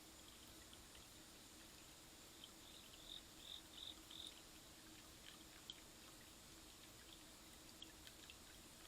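Near silence: a faint steady hum and hiss, with a short run of faint, high, evenly spaced chirps about three seconds in and a few scattered faint ticks.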